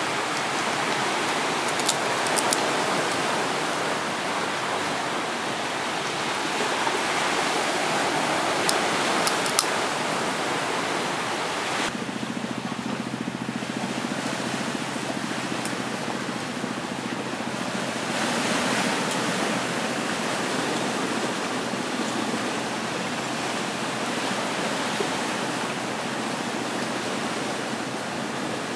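Steady rushing of sea water washing on a rocky shore, with a few sharp clicks near the start and again about nine seconds in. The rush changes character about twelve seconds in.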